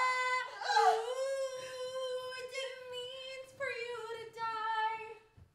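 A woman singing wordless, long, high held notes, with the pitch stepping slightly lower about three and a half seconds in.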